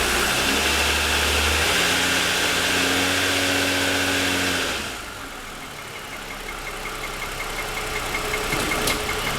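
2007 Lexus ES350's 3.5-litre V6 idling with the hood up, with the knocking of piston slap that this engine has for about ten minutes after a cold start. About five seconds in, the overall sound drops noticeably and a fast, even ticking comes through.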